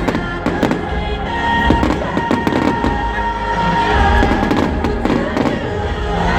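Fireworks display: a fast run of bangs and crackles from aerial fireworks, with music playing underneath.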